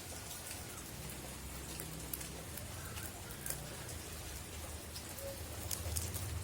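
Steady rain falling, with scattered sharp ticks of drops striking.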